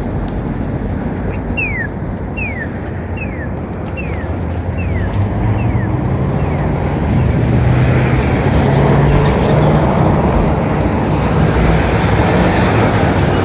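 Wind rushing over a chest-mounted phone's microphone with tyre rumble from a bike riding a trail, growing louder from about eight seconds in as the speed picks up. Early on, a run of about seven short falling whistles, evenly spaced, sounds over it.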